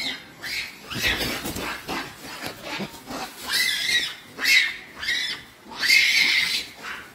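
Young macaque biting and chewing a green apple close by: short, crunchy, smacking bursts about once a second, the loudest about halfway through and near the end.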